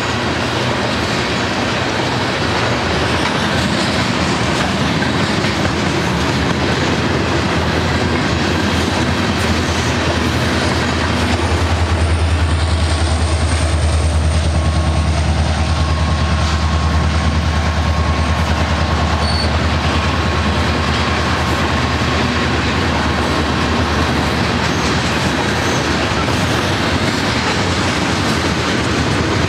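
Long freight train of tank cars rolling past close by, steel wheels clicking over rail joints with a thin high wheel squeal. About twelve seconds in, a mid-train Union Pacific diesel locomotive (distributed power unit) passes, its engine adding a low drone that lasts about twelve seconds.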